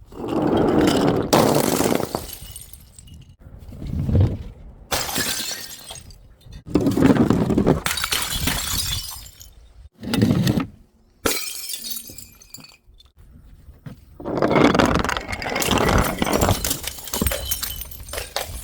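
Glass bottles shattering, about half a dozen separate smashes one after another, each breaking into crunching, tinkling shards and cut off abruptly before the next.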